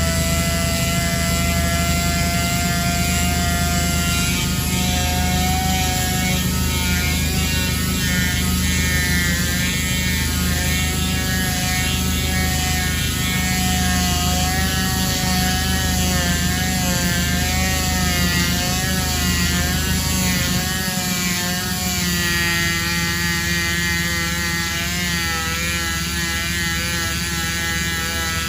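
Power sander running against an alloy wheel, its motor pitch wavering as it works, over a steady low hum; about two-thirds of the way through the low hum drops away and the pitch pattern shifts.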